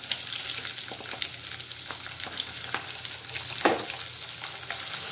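Chopped onions and potato pieces frying in hot oil in a kadai: a steady sizzle with many small scattered crackles, and one sharper click about three and a half seconds in.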